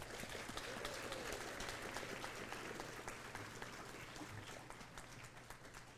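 Audience applauding, a dense patter of many hand claps that slowly fades away.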